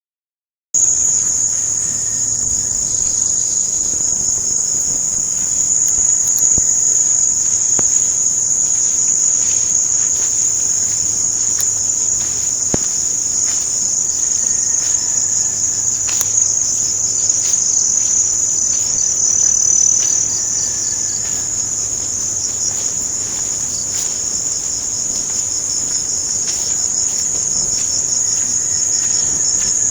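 A loud, steady, high-pitched chorus of insects trilling without a break, starting just under a second in.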